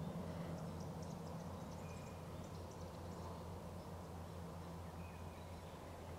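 Quiet bushland ambience: a steady low hum with faint high chirps in the first few seconds and two brief thin whistles, about two and five seconds in.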